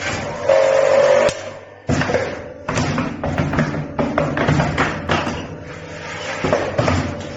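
Wire hanger-hook bending machine running through its cycle: repeated sharp clacks and thumps of the bending mechanism, with a brief held tone about half a second in, heard alongside background music.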